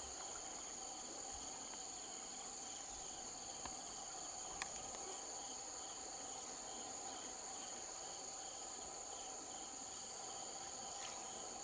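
Insect chorus: a steady high-pitched drone with an evenly pulsing trill beneath it. A single sharp click is heard about four and a half seconds in.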